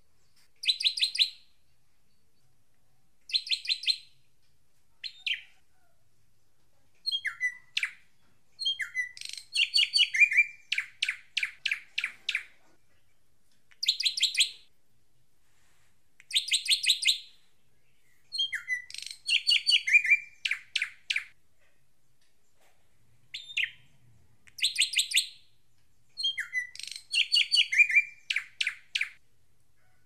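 Drongo (srigunting) song: phrases of rapid, ringing high notes, each about a second long, repeated with short pauses, some beginning with a quick downslurred whistle.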